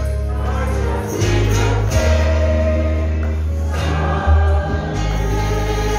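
Live gospel song: singers with microphones sing together over a band with heavy bass notes that change every second or two.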